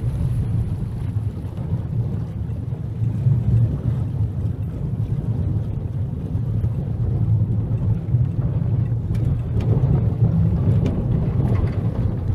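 Horse-drawn tram rolling along its rails: a steady low rumble, with a few faint clicks in the later part.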